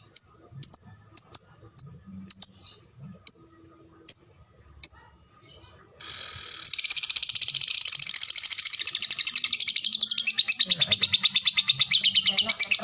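Lovebird ticking (ngetik) with single sharp, high chirps spaced under a second apart. A little past halfway it breaks into the fast, unbroken chattering trill (ngekek) that lovebird fanciers judge for long duration and tight gaps.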